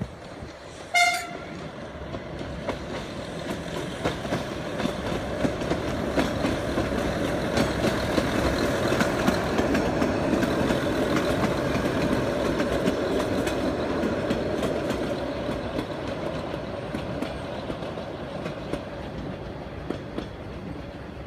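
Corsican Railways X 97050-series diesel railcar with its trailer, sounding one short horn blast about a second in. Its engine and wheels then grow louder as it passes close by, clicking over the rail joints, and fade as it draws away.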